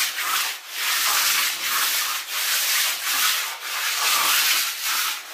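A hand float or trowel scraping back and forth over wet concrete to spread and smooth it, in a steady run of rasping strokes about one or two a second.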